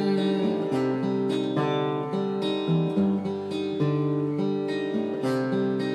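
Acoustic guitar strummed in a steady rhythm, chords ringing on between strokes.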